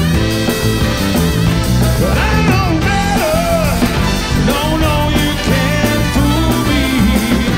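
Live band playing an upbeat number, with saxophone and trumpet in the horn section over drums, congas, bass and keyboard. From about two seconds in, a lead line that bends up and down in pitch rides over the band.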